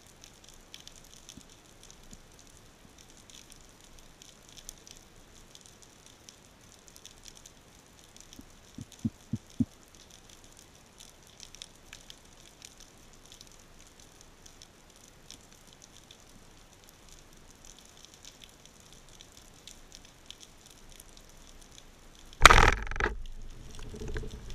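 Faint underwater crackling throughout, with a few short low knocks near the middle. Near the end a band-powered speargun fires with a sudden loud crack, followed by a fading rush as the shaft and line shoot out.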